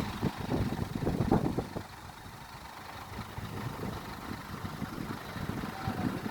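Diesel engine of a Hyundai R220-9S excavator running, an uneven low rumble that is louder for the first couple of seconds, then settles lower.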